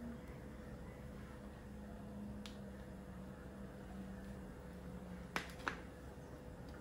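A small ceramic bowl of flour paste set down on a plastic tray: two sharp clicks in quick succession near the end, with a lighter click earlier, over a faint steady hum.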